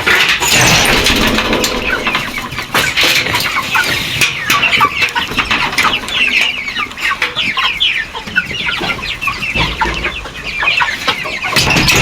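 A flock of chickens clucking, many short calls overlapping continuously, as they settle into an unfamiliar new coop.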